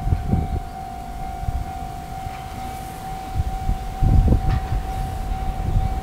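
Japanese railway level-crossing warning bell: an electronic alarm tone repeating steadily, signalling that the crossing is closed for an approaching train. Irregular low rumbling sits underneath it, strongest about four seconds in.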